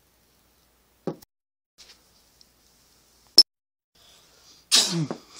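A pog slammer hits the pog stack with one sharp clack about three and a half seconds in. Near the end comes a staged sneeze, 'achoo', falling in pitch.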